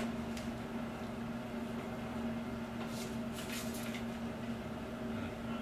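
Quiet room tone: a steady low hum, with a few faint rustles about three and a half seconds in.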